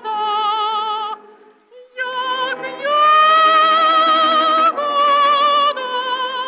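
A woman singing in an operatic style, holding long notes with vibrato. There is a brief pause about a second in, and the loudest note is held through the middle.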